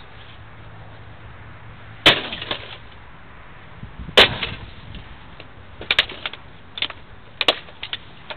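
Pickaxe striking the metal case of an HP Pavilion desktop computer tower: two hard blows about two seconds apart, then several lighter knocks and rattles.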